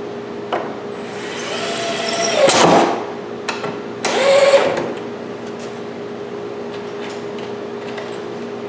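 Jigsaw run in two short bursts, its motor whine dropping in pitch as each one stops, cutting out clamp notches in wood. A steady hum runs underneath.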